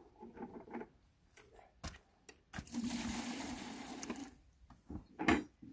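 A shovel working a wet mud-and-straw mix: short scrapes and knocks, then a long wet scraping push lasting under two seconds, from about two and a half seconds in. A sharp, louder scrape or knock comes near the end.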